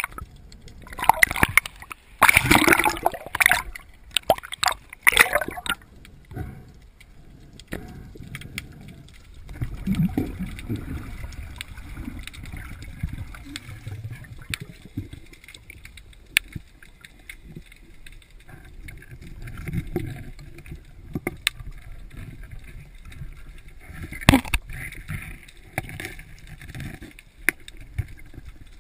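Water heard through a camera held underwater: muffled gurgling and sloshing, with loud bubbly bursts in the first few seconds. After that comes a low rumbling wash with scattered small clicks and one sharp knock late on.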